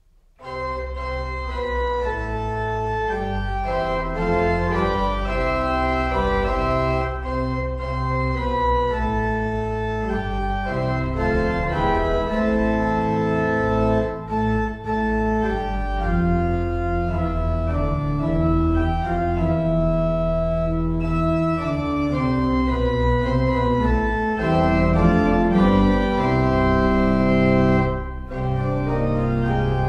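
Church organ playing a postlude: full sustained chords over a deep pedal bass, starting abruptly just after the start, with two brief breaks, one about halfway and one near the end.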